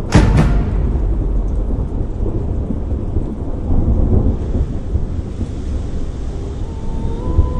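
Thunderstorm: a sharp thunderclap at the very start, then a low rolling rumble over steady rain noise. Held music notes fade in near the end.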